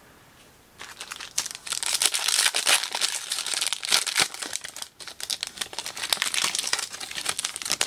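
Foil wrapper of a Select Draft Picks trading-card pack being torn open and crinkled in the hands: a dense crackle of foil starting about a second in and going on for several seconds.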